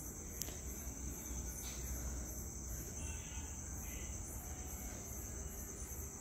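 Insects chirping steadily in the field, a high continuous trill with a regular pulsing above it, over a low steady rumble. A few brief rustles come through, from the grain sacks being handled.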